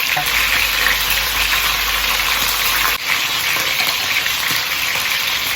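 Chicken wings frying in hot oil in a pan, a steady sizzle, with a brief dip about three seconds in.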